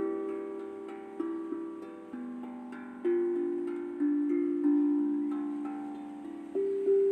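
A tuned drum played slowly as a gentle melody: single pitched notes struck about once or twice a second, each ringing on and overlapping the next.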